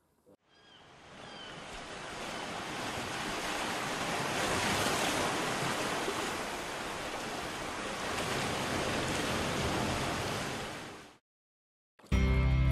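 Sea water washing and rushing, a steady hiss-like noise without any tone that fades in over the first few seconds and fades out about a second before the end.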